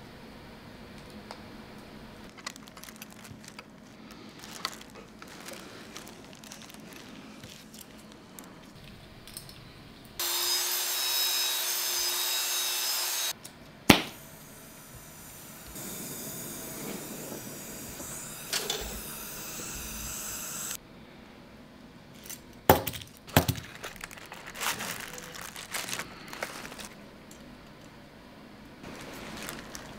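Metalworking at a bench: thin steel rods clinking and rustling as they are handled, then a loud machine noise for about three seconds, a single sharp snap, several seconds of steady hiss, and a few sharp metal knocks near the end.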